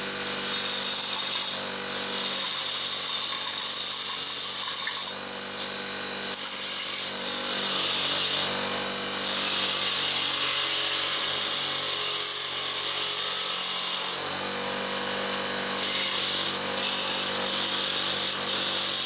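A power tool motor runs steadily while rusty steel bolts are held against it and scrubbed clean, with a loud hissing, rasping scrub over the hum that swells and eases as the bolts are worked.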